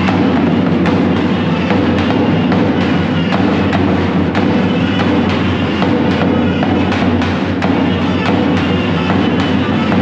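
Loud dance music with a steady drum beat, typical of Turkish wedding dancing.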